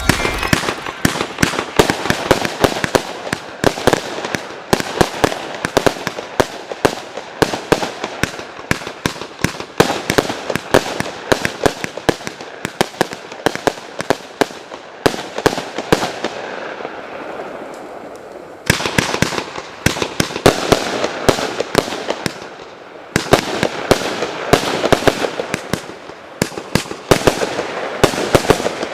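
93-shot, 25 mm fan-shaped fireworks battery firing rapid volleys of shots in quick succession. About two-thirds of the way through, the shots thin out into a fading tail, then resume densely, with another brief dip a few seconds later.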